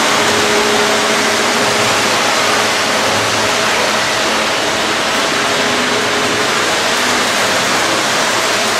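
Lionel O gauge model train running along three-rail track: a steady rushing rumble of wheels and motor, with a faint hum that comes and goes.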